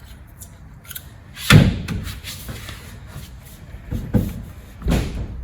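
A heavy metallic thud about a second and a half in, like a car door slamming or a heavy part set down, followed by two lighter knocks near the end, from work on a car.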